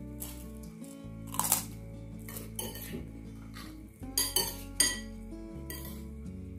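Metal spoons clinking and scraping against ceramic bowls a few times, the loudest strikes about four to five seconds in, over background music.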